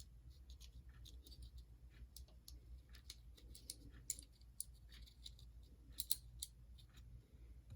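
Faint, scattered clicks and taps of small plastic and metal model-locomotive parts being handled and fitted together, over a low steady hum.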